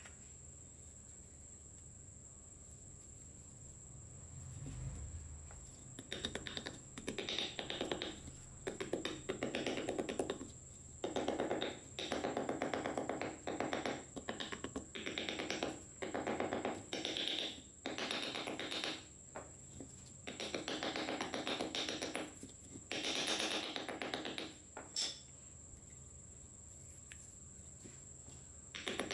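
A hand tool works the rusty armature of an old electric grinder on a steel block in a dozen or so short bursts of rapid metal strokes, each about a second long, after a quiet start.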